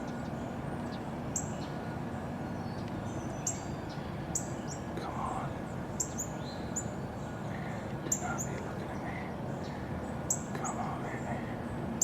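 Small birds calling: short, high chips that slide downward, repeated every half second to a second over a steady background hiss.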